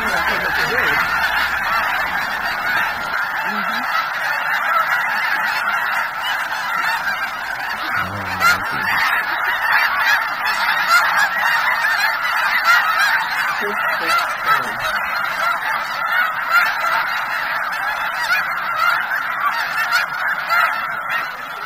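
A huge flock of snow geese calling all at once: a dense, unbroken chorus of high honks.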